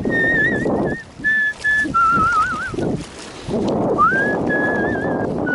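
A man whistling a tune: long held notes with a wavering vibrato, a lower warbling note about two seconds in, and a rising slide into another held note about four seconds in.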